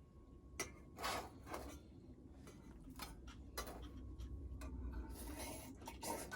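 A string of light clicks, taps and rustles from things being handled at a meal, with one of the louder taps about a second in.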